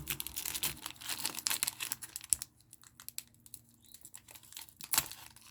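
Crinkling and rustling of a foil Pokémon booster pack wrapper being handled, with rapid crackles for the first couple of seconds, then softer and sparser, and a sharper crackle about five seconds in.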